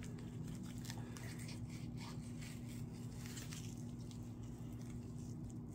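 Faint scraping and rubbing of a thin fillet knife worked back and forth between a small trout fillet and its skin on a wooden cutting board, skinning the fillet.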